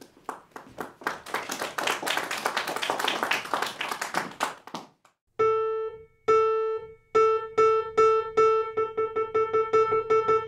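Audience applauding for about the first five seconds, then dying away. A Petrof grand piano then starts on one note repeated, slowly at first and then faster and faster.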